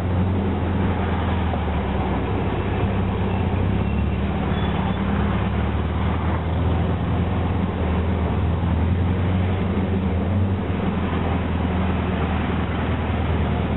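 Dune buggy engine running with a steady low drone while driving slowly in town traffic, over a hiss of road noise. The engine note holds even, without revving.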